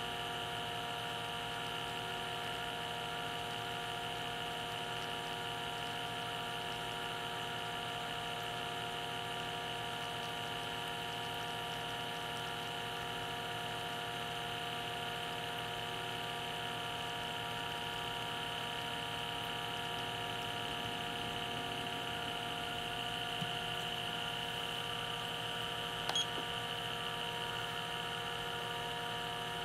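Small electric vacuum pump running with a steady, unchanging whine made of several fixed pitches, pulling a vacuum under a glass pour-over cone of coffee grounds during the bloom. A brief click about 26 seconds in.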